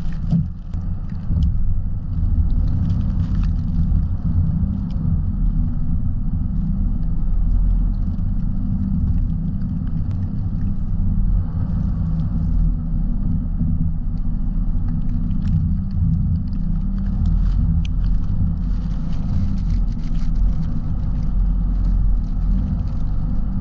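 Car driving on snow-covered streets: a steady low rumble of engine and tyres, with faint scattered ticks.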